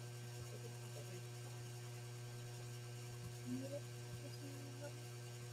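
Steady low electrical mains hum, with faint voices in the background about three and a half seconds in.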